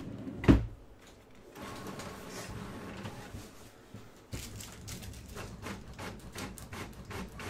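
A sharp knock about half a second in, then a desktop printer running: a steady whirr, then a quick series of clicks and rattles from about four seconds in as the page feeds through.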